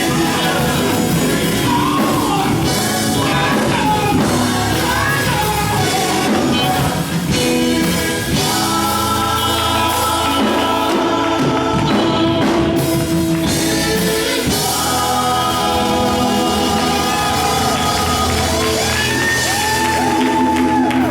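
Band music with singing, played live. Sung lines bend up and down, with long held notes in the last few seconds.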